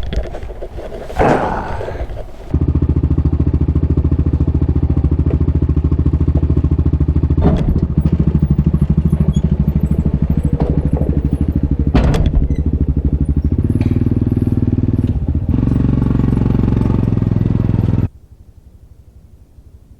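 A vehicle engine running loudly and steadily, with a couple of sharp knocks over it and small shifts in its pitch, then cutting off suddenly near the end. A few knocks and thumps come before it starts.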